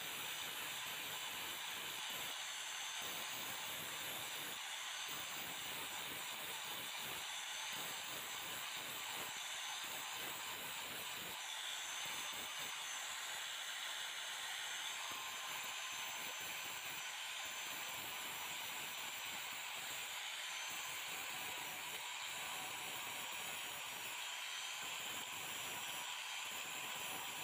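Electric angle grinder running steadily with a high whine, its abrasive disc hissing against a rusty steel rod as it grinds the rust off.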